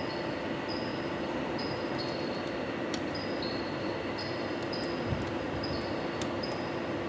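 Steady background hum with a low steady tone. Faint short high-pitched chirps repeat roughly once a second, and a few light clicks fall about three and five seconds in.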